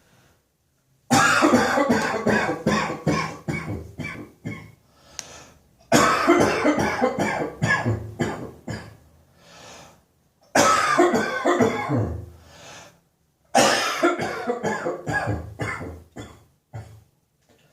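A person's chesty morning cough: four long coughing fits, each a rapid run of coughs that weakens toward its end, separated by short pauses.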